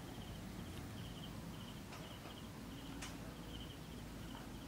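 Quiet outdoor ambience: a faint, rhythmic high-pitched chirping, with short trills repeating about twice a second over a low steady rumble and a couple of faint ticks.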